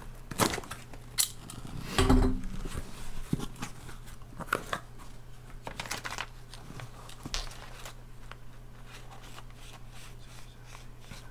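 Cardboard shipping box being slit open along its tape with a small cutter and its flaps pulled back: sharp scrapes and clicks of tape and cardboard, loudest about two seconds in. After that the handling thins to soft rustling of paper and cardboard.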